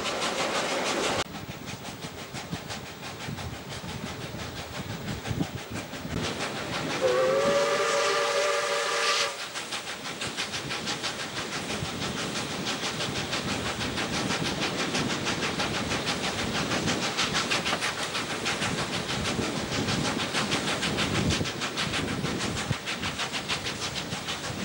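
South Australian Railways 520-class 4-8-4 steam locomotive No. 520 running with its train, a steady noise with rapid even beats from the moving train. About seven seconds in comes one steam whistle blast a little over two seconds long, the loudest sound. The overall noise drops suddenly just over a second in.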